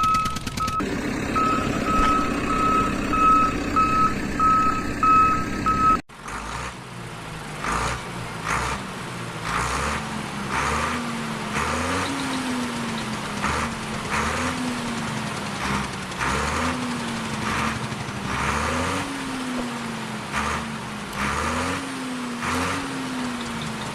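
A vehicle reversing alarm beeping about twice a second. About six seconds in it cuts off abruptly and an engine sound takes over, rising and falling in pitch again and again like repeated revving, with a light clatter.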